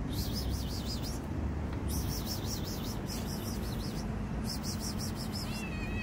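Three bursts of high, rapid, wavering chirping, each about a second long, over a steady low background rumble. Just before the end, a cat begins to meow.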